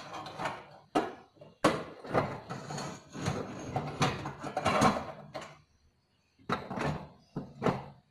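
Household clatter of objects being handled and knocked about, with rustling and several sharp knocks. A short lull falls past the middle, then two brief bursts of clatter near the end.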